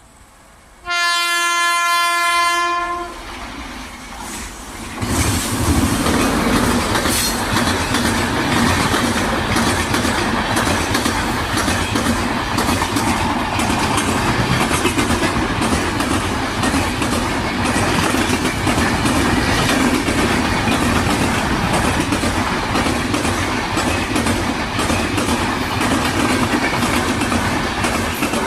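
A WAP7 electric locomotive's horn sounds one long blast about a second in. A few seconds later the train's LHB coaches pass close by with loud, rhythmic clickety-clack track sounds from the wheels running over the rails.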